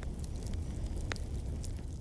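Wood fire crackling in a fireplace: scattered sharp pops over a steady low rumble, with one louder pop about a second in.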